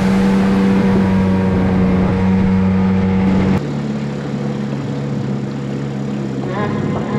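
Small outboard motor of an 8-foot jon boat running steadily at speed. About three and a half seconds in it changes abruptly to a lower, quieter, slower-running note.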